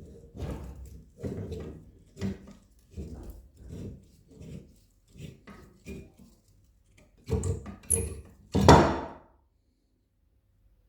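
A string of irregular knocks and scrapes, about one or two a second, from hand work on the shears or tools at the workbench. The loudest, a longer scrape, comes near the end, and then the sound stops.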